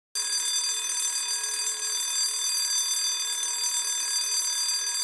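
Emergency alarm bell ringing steadily, starting suddenly: the signal of an incoming fire call.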